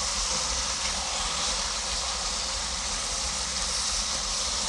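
Ground pork and beef with onion sizzling steadily in a hot cast-iron kazan as it fries and browns.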